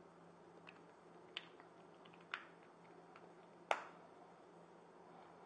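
A few light clicks and taps of small plastic ink-pad cases being handled and set down on the table, the sharpest about two-thirds of the way in.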